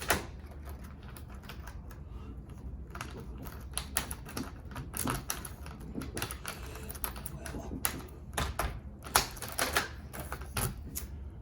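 Key inserted and turned in a Kwikset SmartKey exterior doorknob lock: a run of irregular metallic clicks from the lock cylinder and latch as the newly rekeyed lock is tried.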